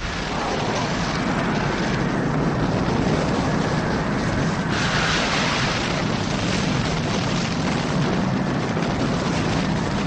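Sound effect of Orochi, the eight-headed dragon kaiju: a long, dense rumbling rush of noise that starts abruptly, turns brighter and hissier about five seconds in, and keeps going without a break.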